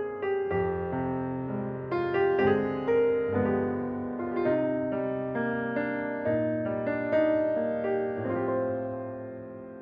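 Samsung Galaxy S20 ringtone: a melody of struck notes in a piano-like tone over a bass line, its last chord dying away near the end.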